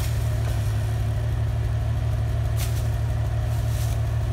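Jeep Wrangler engine idling steadily close by, with two short rustles about two and a half and four seconds in.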